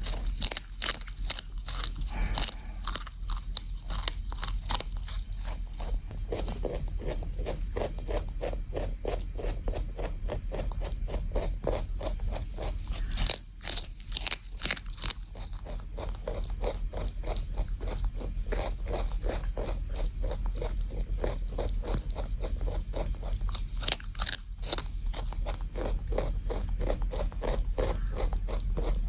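A rabbit chewing celery with rapid, steady crunching strokes, several a second. Louder, crisper crunches come in the first few seconds, around the middle and again later on, as it bites off fresh pieces of stalk.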